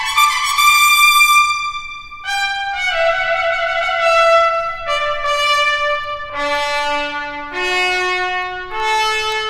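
Solo trumpet playing a slow phrase of held notes: it slurs up to a high note about a second in, then steps down note by note to a low note at about six and a half seconds, and climbs again near the end.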